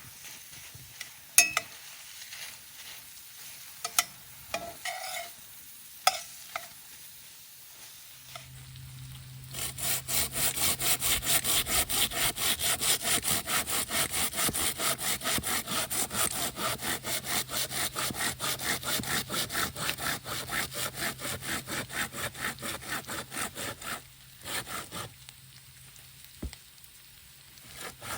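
Hand saw cutting through wood in quick, even strokes, about four a second. It starts about ten seconds in after a few scattered knocks and clicks, pauses briefly near the end, then starts again.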